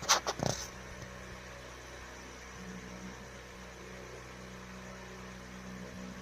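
A steady mechanical hum. In the first second, a quick cluster of four or five sharp sounds.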